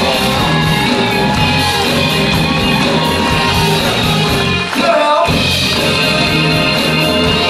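Live soul band playing an up-tempo groove on electric guitar, bass, drums and congas. About five seconds in the band stops for a moment while a voice yells, then comes straight back in.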